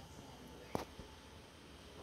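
Quiet room hum with one sharp click a little under a second in and a fainter click just after.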